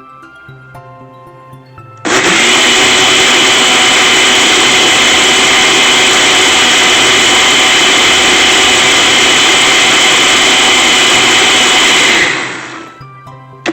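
Countertop blender switched on about two seconds in, spinning up and running steadily and loudly for about ten seconds as it purées boiled carrots and beetroot, then switched off and winding down near the end.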